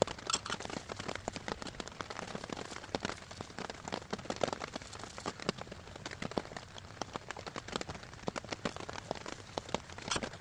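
Heavy rain falling, with many close raindrops landing as dense, irregular sharp ticks over a steady hiss.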